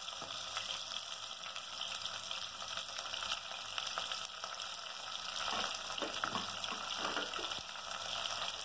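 Chopped onion chunks sizzling steadily in hot oil with cumin seeds and whole spices in an aluminium pressure cooker, with a few faint crackles in the second half.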